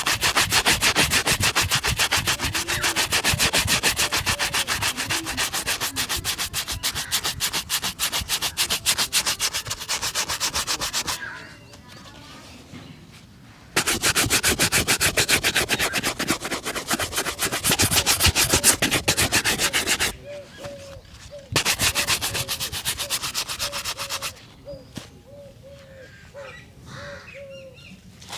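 Rapid back-and-forth buffing strokes on a shoe during a shoe shine, in three runs broken by short pauses.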